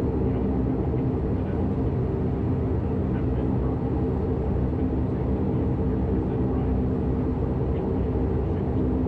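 Dash 8 Q400's Pratt & Whitney PW150A turboprop engines and propellers running steadily: a constant low drone made of several steady tones.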